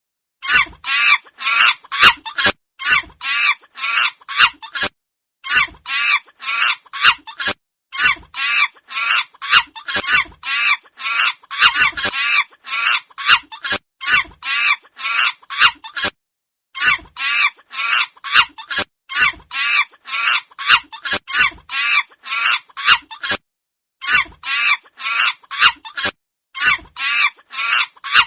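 Rapid, repeated high-pitched animal chattering calls, about four or five a second, in bursts of a few seconds separated by short pauses.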